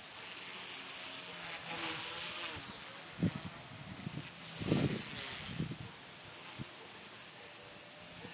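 Blade mCPX micro RC helicopter with a brushless HP-05 motor in flight, giving a high-pitched whine with rotor hiss. The whine dips in pitch and climbs back twice as the helicopter manoeuvres, and a couple of low thumps come through.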